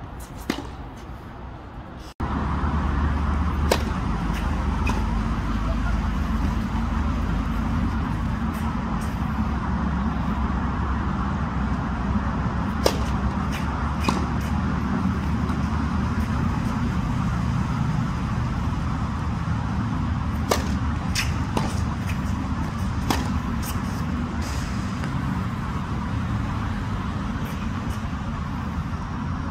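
A tennis ball is struck and bounced on a hard court, giving a few sharp, widely spaced pops. From about two seconds in, a loud, steady low outdoor rumble runs under the pops.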